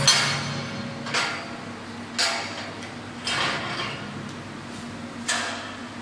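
MIG welding arc crackling in short bursts about once a second, each fading quickly, over a steady low hum.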